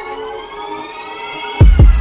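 Electronic intro music: a rising synth build-up that drops into heavy bass and a kick drum about one and a half seconds in.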